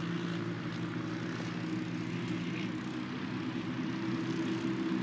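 Quadcopter drone's propellers and motors hovering, a steady multi-tone hum that swells slightly near the end.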